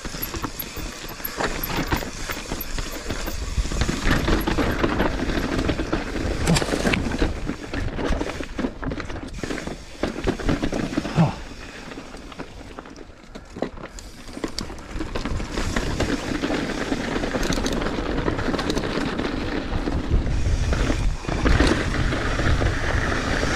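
Mountain bike descending a rocky trail: tyres crunching over loose rock, with the frame and gear rattling and sharp knocks as the wheels hit rocks. Wind rumbles on the camera microphone, heavier near the end as the trail smooths out.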